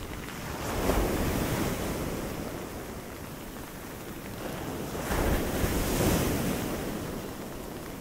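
Pacific storm surf breaking on a beach: two waves crash, one about a second in and another around five to six seconds, each swelling and then fading into the steady roar. Wind buffets the microphone throughout.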